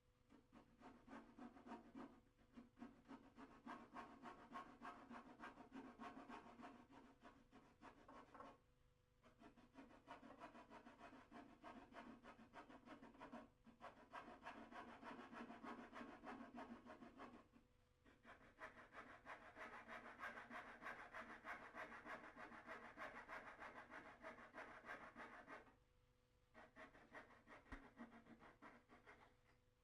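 Coping saw cutting timber in fast back-and-forth strokes, faint, in several runs with short pauses between, while it cuts around the profile of a mitred dado rail to scribe an internal corner.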